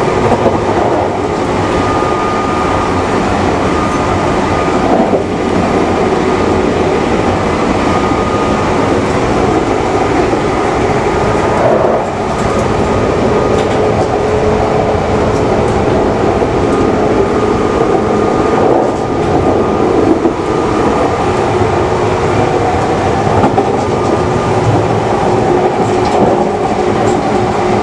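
JR 381-series limited express train, heard from on board: a steady loud rumble with a faint steady whine on top.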